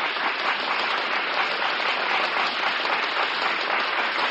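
Studio audience applauding steadily, on an old 1940s radio broadcast recording with a narrow, dull top end.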